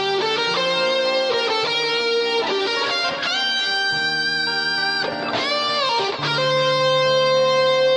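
Slow rock instrumental passage: an electric guitar plays a slow melodic lead of long held notes with string bends, over a sustained low backing chord.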